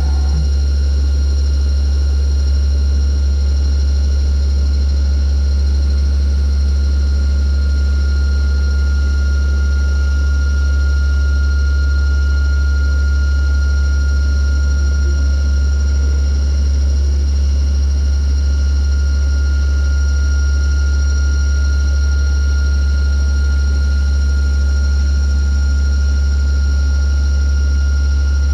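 Deckel Maho DMU 35 M machining centre running under power: a steady, loud, deep hum with a constant high whine above it, unchanging throughout.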